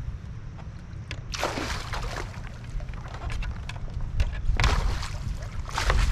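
A hooked northern pike thrashing and splashing at the surface beside a kayak: splashes about a second in, again later, and once more near the end. A steady low rumble of wind on the microphone runs under it.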